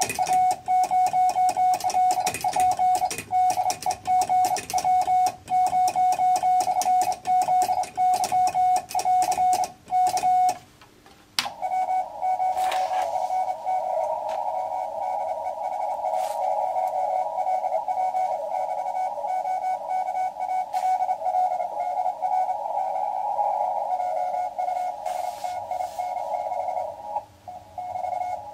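Hand-keyed Morse code (CW) from a radio: a single tone of about 700 Hz sent in dots and dashes, with key clicks. About ten seconds in the sending stops, and the receiver's hiss comes up through a narrow CW filter, with a fainter incoming Morse reply in it.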